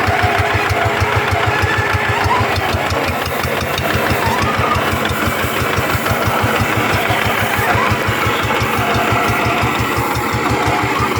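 G1000 paddy-field tractor engine running steadily with an even, rapid chug of about eight beats a second.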